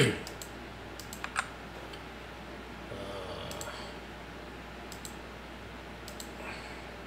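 Computer keyboard and mouse clicks: a loud knock right at the start, then a few scattered, separate clicks.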